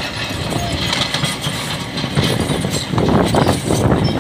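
Kobelco hydraulic excavator's diesel engine running under working load, rough and steady, growing louder about three seconds in.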